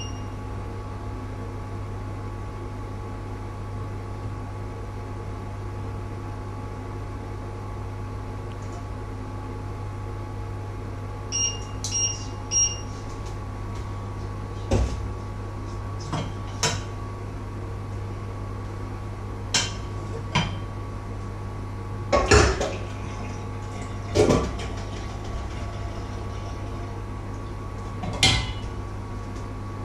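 Metal pots, pans and lids clank and clatter on the stove about eight times in the second half, loudest about 22 and 24 seconds in. Before that come three short high beeps about 11 to 13 seconds in, typical of a stove's touch controls. A steady electrical hum runs underneath.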